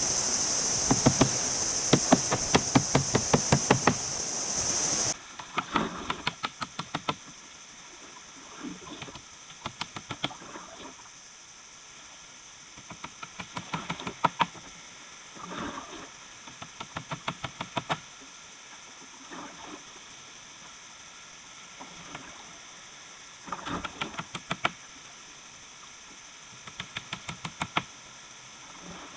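Insects shrilling steadily for about the first five seconds, cut off abruptly. After that come short bursts of rapid knocking and tapping every few seconds, from hand work on wood and styrofoam.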